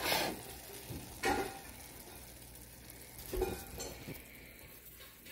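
Wooden spoon stirring browned ground beef in a stainless steel pot, with three scraping strokes over a low sizzle from the pan.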